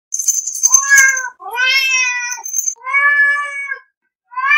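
Domestic cat meowing four times in a row.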